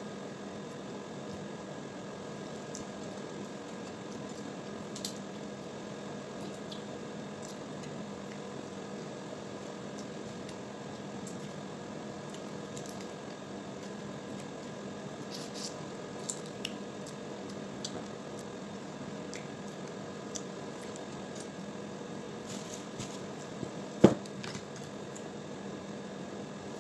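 Cooked crab legs being cracked and picked apart by hand, with eating sounds and scattered small sharp cracks over a steady background hum. One loud knock near the end.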